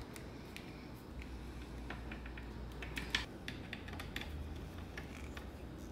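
Scattered light metallic clicks and ticks, most of them in the middle, as a screwdriver turns a small battery terminal bolt to fasten the red lead onto the battery's red terminal.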